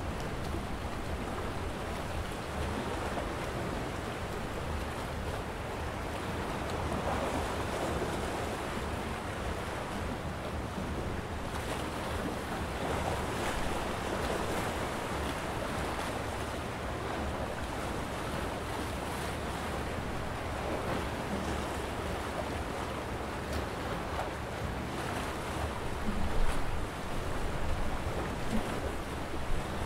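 Small sea waves washing against a rocky shore, a steady wash that swells now and then, with a few sharper splashes near the end. A low wind rumble on the microphone runs under it.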